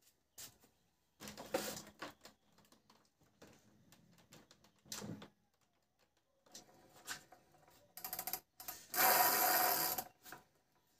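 Workshop handling noises from the wooden plank and wheel of a homemade chukudu scooter: scattered knocks, creaks and scrapes, with a louder scrape lasting about a second near the end as the wheel is worked against the plank.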